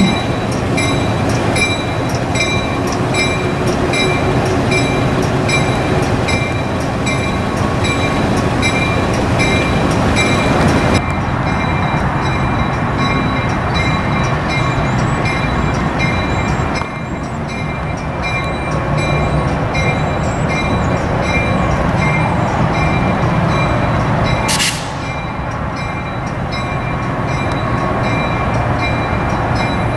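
End-cab diesel switcher locomotive running with a steady low engine rumble, its bell ringing about twice a second for roughly the first eleven seconds, then stopping.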